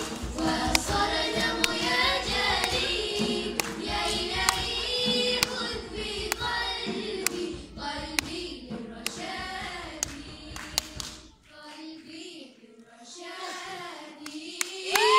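Girls' choir singing a nasheed to the strokes of a hand drum. About eleven seconds in the drum stops and the voices carry on more softly to the close of the song.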